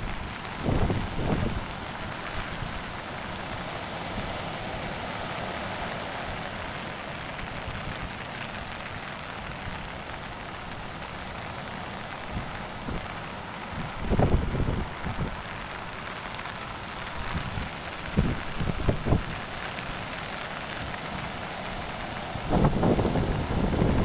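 Steady hiss of ocean surf breaking on a sandy beach in a typhoon swell, with gusts of wind buffeting the microphone: about a second in, twice in the middle, and most strongly near the end.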